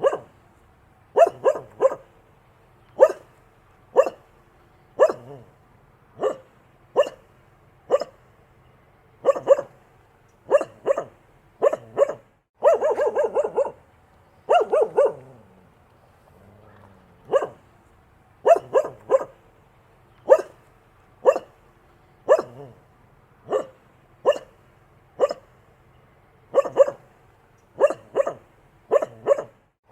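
A dog barking, mostly single and double barks about once a second. Around the middle comes a quick run of rapid barks, then a pause of about two seconds before the barking resumes.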